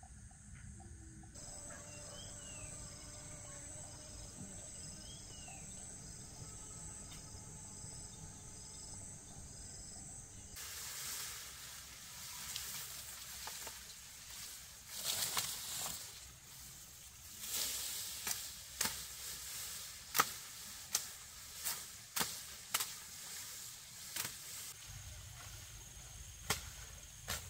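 Insects chirping in a steady, even rhythm with a high continuous tone. About ten seconds in, this gives way to a run of irregular sharp knocks and taps.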